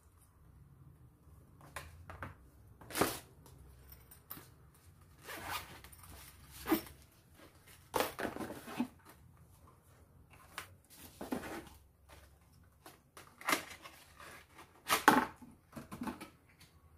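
Hands rummaging in a cardboard shipping box and handling boxed accessories: irregular rustles, scrapes and light knocks of cardboard and plastic packaging, with a few louder scrapes.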